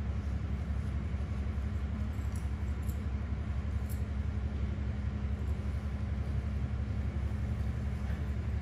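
Steady low hum and rumble at an even level, with no speech.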